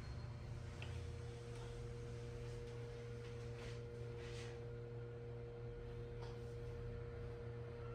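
A steady, even hum of several held tones that does not change or fade, with a few faint soft rustles around the middle.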